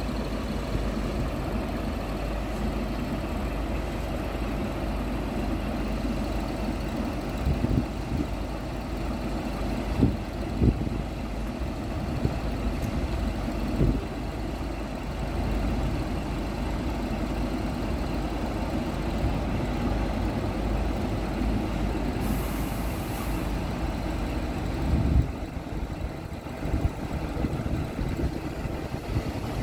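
A Scania P truck's diesel engine runs steadily while its truck-mounted hydraulic loader crane is worked and the boom unfolds and lifts. A few sharp clunks from the crane come through, and there is a brief hiss about two thirds of the way through.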